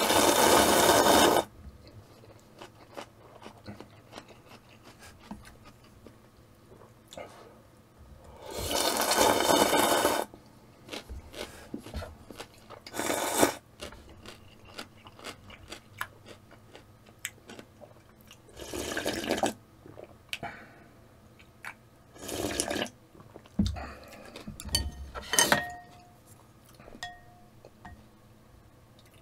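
A man slurping instant ramen noodles: a long noisy slurp at the start and another about nine seconds in, with shorter slurps later. Faint chewing and light clicks of chopsticks and a spoon on the ceramic bowl fill the gaps between them.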